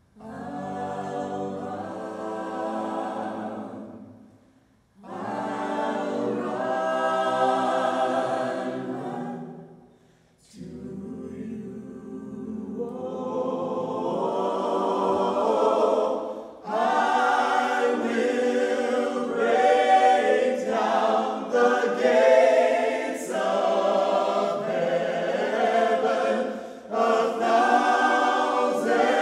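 Mixed choir of men's and women's voices singing a cappella. Three held phrases come with short breaks between them; from about ten seconds in the singing runs on unbroken and swells louder and fuller.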